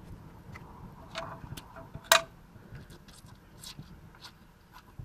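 Scattered light clicks and taps of a hand and tool on engine-bay parts while bolts and wire holders are being loosened, with one sharper click about two seconds in.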